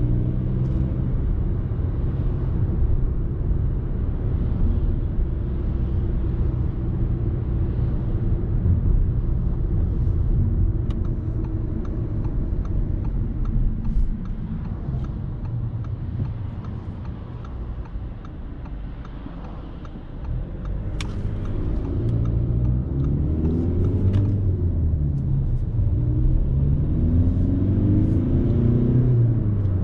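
Audi A3 30 TDI's 1.6-litre four-cylinder turbodiesel and road noise heard from inside the car: a steady low rumble while cruising, which eases off and gets quieter in the middle. Near the end the engine pulls hard, and its note rises twice with a short drop between, as the car accelerates. A few sharp clicks come about two-thirds of the way through.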